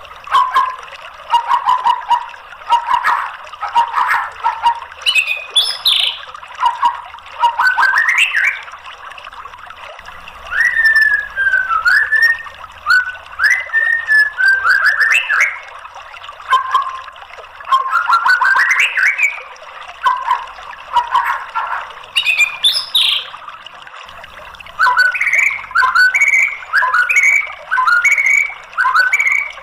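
Male white-rumped shama singing: loud, varied phrases of whistled rising and falling sweeps and quick chattering notes, separated by short pauses. Near the end comes a fast run of short repeated notes.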